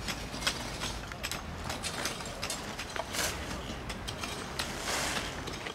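Shovel scraping and digging through loose, dry soil: a run of gritty scrapes and small knocks, with two longer scrapes about three and five seconds in.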